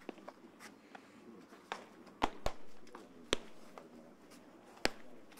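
Baseballs smacking into catchers' mitts in a bullpen: a series of sharp pops, two about a quarter second apart a little over two seconds in, then the loudest single ones about three and a half and five seconds in.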